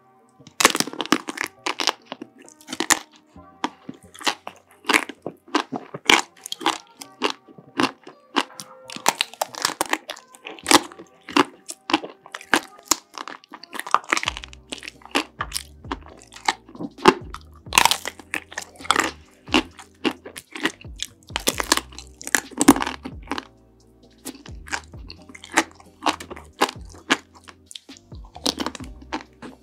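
Close-miked crunching and cracking as chocolate-and-nut-coated ice cream bars are bitten and chewed: many sharp cracks in quick succession. Background music plays underneath, and a low bass beat joins about halfway through.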